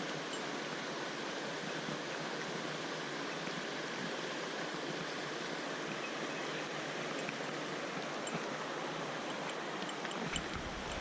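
Mountain stream water rushing steadily. Near the end a low rumble comes in.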